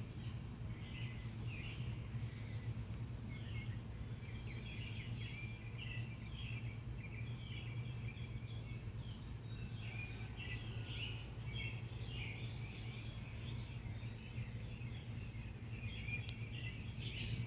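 Many birds chirping: a continuous scatter of short high calls over a steady low hum, with a few sharp clicks at the very end.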